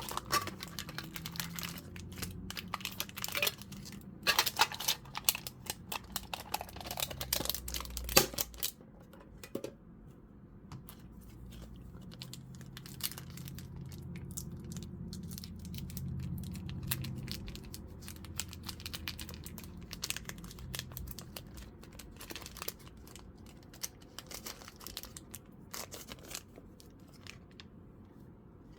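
Foil Pokémon booster pack wrapper crinkling and being torn open: dense, sharp crackling for about the first nine seconds, then softer, sparser crinkles and rustles as the pack and cards are handled.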